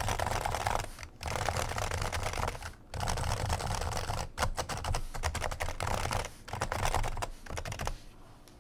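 Fast continuous typing on a Topre Realforce R2 keyboard with 55g factory-silenced electrostatic capacitive switches, the muted thocky strokes broken by short pauses; the typing stops near the end.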